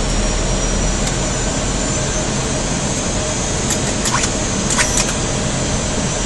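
Steady flight-deck noise of an airliner descending on approach, the rush of airflow and engine noise. A few short clicks come about four to five seconds in.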